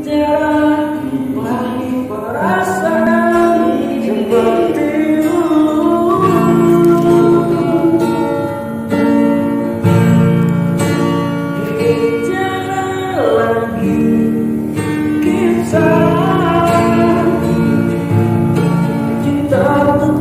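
A voice singing a slow, melodic song with long held notes and sliding pitch, accompanied by a strummed and plucked acoustic guitar.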